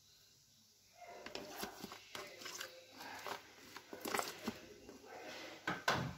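Metal spoon scraping soft butter out of a plastic tub and knocking it off into a glass bowl: scattered light scrapes and clicks, the sharpest near the end.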